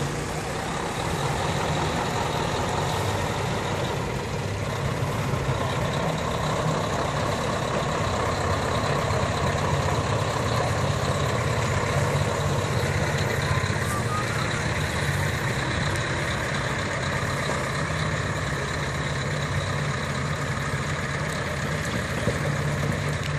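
Scania heavy-haulage tractor unit's diesel engine running steadily at low speed, a low drone, as it slowly pulls a 50-tonne boat on a multi-axle trailer.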